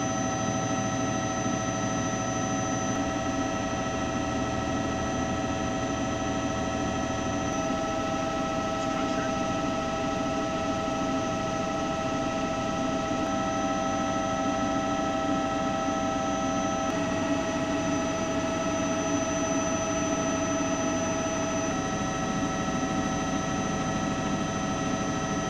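Steady helicopter turbine and rotor drone heard from inside the aircraft, with several high whining tones over a noisy hum. The pitch of the tones shifts slightly at each cut.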